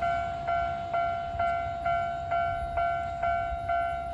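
Electronic railway level-crossing warning bell ringing with its steady two-beat-a-second clang, each strike fading before the next, over a low rumble. The bell signals that a train is approaching or passing the crossing.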